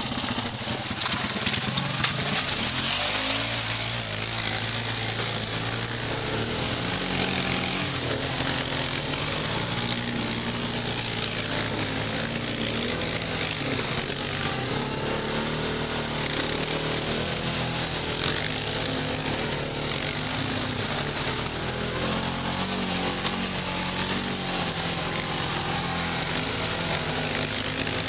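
ATV engines running through mud, their pitch stepping up and down as the throttle is worked, with no let-up.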